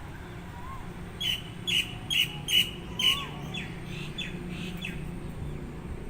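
A bird calling in the forest: a quick run of about five loud, sharp chirps, then a few fainter ones trailing off. A softer, lower whistle sounds now and then, over a steady low background rumble.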